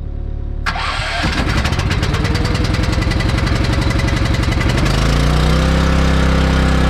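An engine starts suddenly about a second in and runs with a fast, even firing beat. Around five seconds in it speeds up and settles into a steady run.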